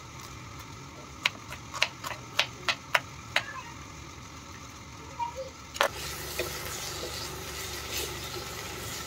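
A knife chopping red onion on a wooden cutting board, about six sharp knocks in the first three and a half seconds. About six seconds in, a steady sizzle of chicken and vegetables frying in a wok takes over, with a few light knocks of a wooden spatula stirring.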